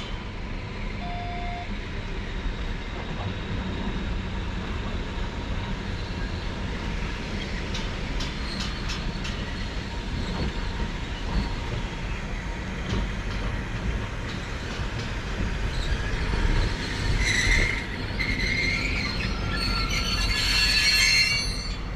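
Sangi Railway ED45 electric locomotives rumbling slowly along the yard track on a shunting move to couple up with freight wagons. There are a few sharp clicks about eight seconds in, and the wheels squeal with high tones in the last several seconds as the locomotives draw close and grow louder.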